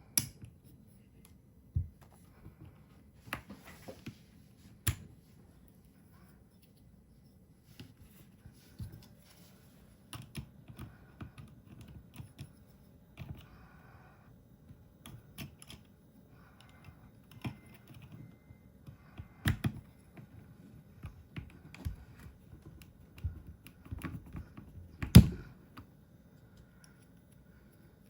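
Keystrokes on a Keychron K2 HE keyboard with Gateron double-rail magnetic switches: irregular key clacks with pauses, and one louder knock about 25 seconds in.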